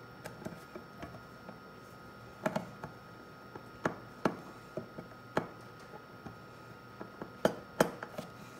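Irregular sharp clicks and taps of a screwdriver and small screws against the radio's case as its cover is screwed back on, with a few louder knocks among lighter ticks.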